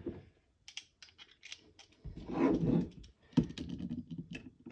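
Scattered light clicks, taps and scrapes of small parts and a tool being handled while fitting screws into a plastic gun chassis, with a duller rustle about two seconds in and firmer knocks near the end.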